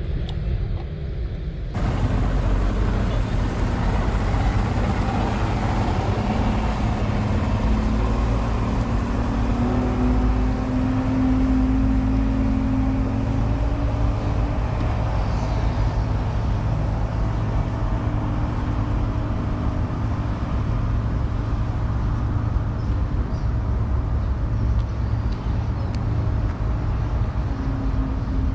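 A motorboat's engine running as the boat pulls away, over a steady low rumble. The engine's pitch rises for several seconds, then settles.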